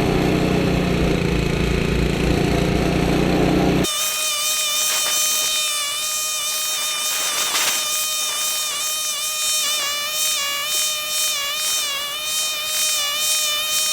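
The five-horsepower Tecumseh Snow King engine of a 1976 Ariens Sno-Throw snowblower running steadily, cut off suddenly about four seconds in. Background music with held, gently wavering tones follows.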